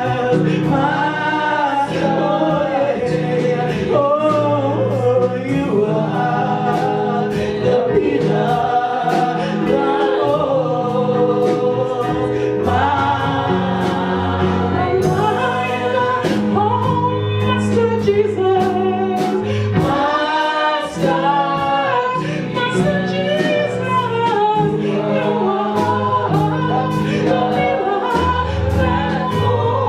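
Gospel worship song sung by a group of voices, with a band accompaniment of bass notes and a steady drum beat.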